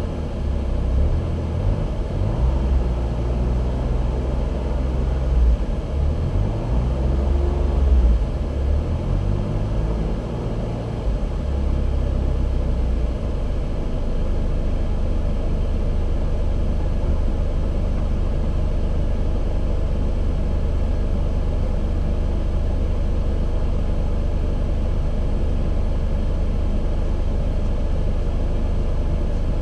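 Car engine running, its low hum shifting up and down in pitch for about the first dozen seconds, then settling into a steady idle.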